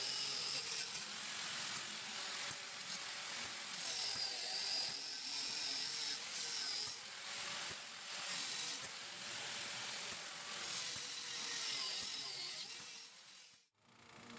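Cutoff wheel cutting through 3/8 inch steel flat bar, a hissing grind with a high whine that sags and recovers in pitch several times as the wheel bites. The sound breaks off briefly near the end.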